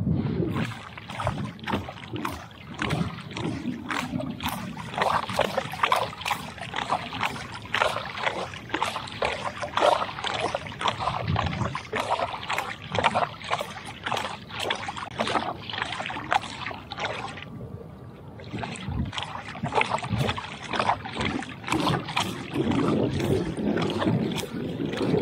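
A small fishing lure being twitched across the water's surface close to the bank, splashing and spluttering over and over, with a short lull about two-thirds of the way through.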